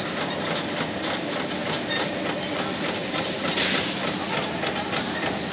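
Servo-driven plastic bag sealing-and-cutting machine running steadily, with a short high click about every 1.7 s as it cycles and a brief hiss about 3.5 s in.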